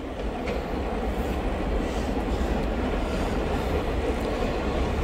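Train hauled by T class diesel-electric locomotives passing: a steady low diesel engine rumble under wheel-on-rail noise, growing a little louder over the first second or two.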